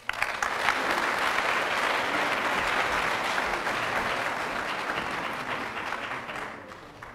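Audience applauding in a large hall, starting right away and dying away over the last second or so.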